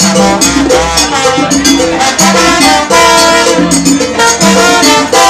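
Salsa music: a Latin band playing sustained melodic lines over a steady beat of sharp, high percussion strokes.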